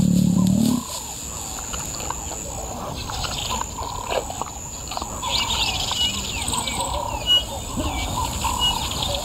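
Lion growling low, cutting off suddenly about a second in. Then a bush soundscape of birds calling and chirping, the chirps thickening from about five seconds on, over a steady high insect drone.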